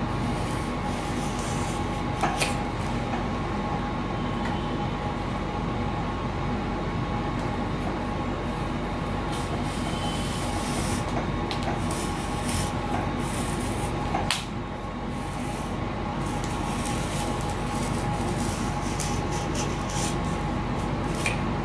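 Steady mechanical hum with a few fixed tones in it, over which a hobby knife now and then scratches and clicks as it is drawn along a straight edge through a laminated model-aircraft wing to cut out the aileron.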